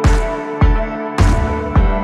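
Background music: a steady heavy beat, about one hit every 0.6 seconds, over held electronic notes.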